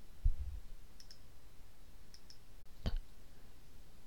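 A few faint computer mouse clicks, the sharpest about three seconds in, with a soft low thump just after the start.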